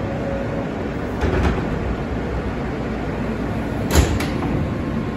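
Sliding doors of an R160 subway car opening at a station stop, with two sharp clunks close together about four seconds in over the car's steady running hum. A brief hiss comes about a second in.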